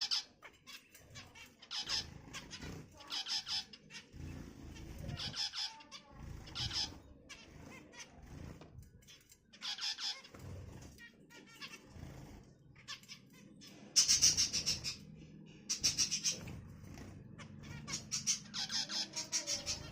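Finches chirping in short bursts of rapid, high-pitched chatter, repeated every second or two, loudest a little past the middle.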